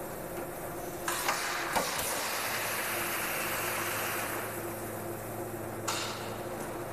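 Thermoforming machine cycling under a steady hum: a click and then a clunk, then air hisses for about four seconds until another click cuts it off.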